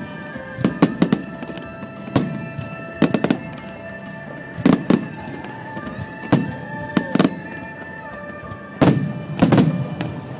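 Aerial fireworks shells bursting in quick succession, sharp bangs every second or two, often two or three close together, with music playing underneath.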